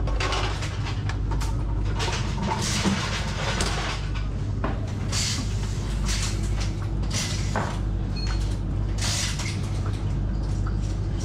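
Mechanics working on a rally car in service: repeated short bursts of clatter and scraping from tools and handling, over a steady low hum.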